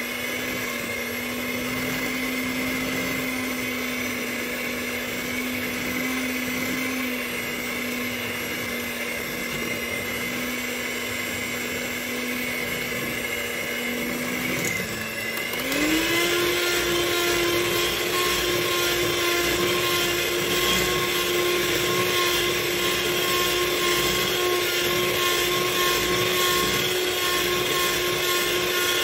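Electric hand mixer running with its twin beaters in a bowl, beating margarine, butter, sugar and egg into cookie dough. Its steady motor whine steps up in pitch to a higher speed about halfway through and runs louder from there on.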